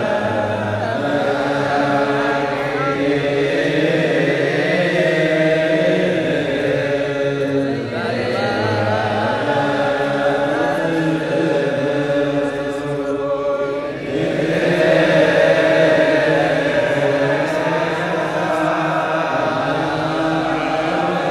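Many voices chanting together in Ethiopian Orthodox liturgical chant, with long held notes that move slowly in pitch. The chant eases briefly about eight seconds in and again about fourteen seconds in.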